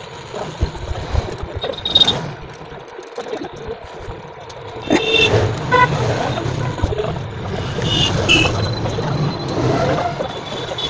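A screwdriver tightening the MOSFET mounting screws onto an e-bike controller's heat sink: small metal clicks and scrapes, with a few short high-pitched squeaks.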